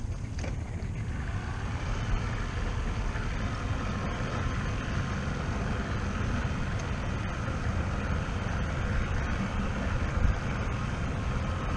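Wind buffeting the microphone, a steady low rumble, with a fainter steady hum above it.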